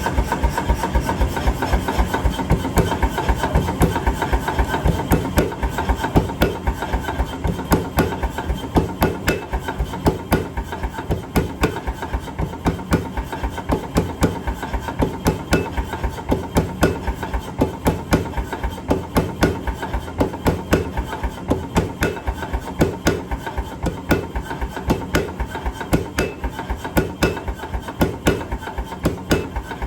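Power hammer pounding hot metal in a fast, even run of blows, several strikes a second, without a break.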